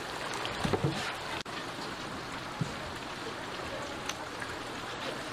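Chicken pieces frying in a vat of hot oil, a steady sizzle, with a short bit of voice about a second in.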